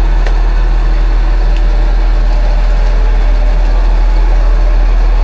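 Fire truck engine running steadily at idle: a loud, even, deep drone, with a couple of faint clicks over it.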